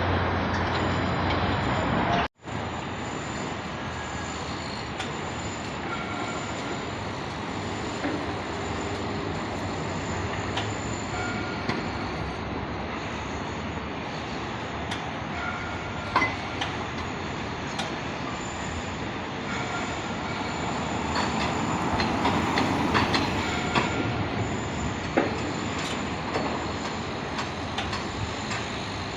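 Construction site din: steady machinery noise with scattered metallic clanks and knocks. The sound drops out abruptly for an instant about two seconds in.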